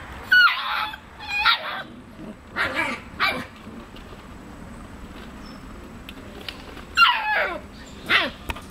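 Alaskan Malamute puppies yipping and whining in short high-pitched calls that drop in pitch: a few in the first three seconds, a quiet stretch, then two more near the end.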